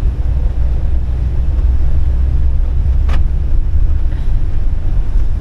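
Motorhome driving through deep floodwater: a steady low rumble of the engine and water churning around the wheels, with one brief sharp knock or splash about three seconds in.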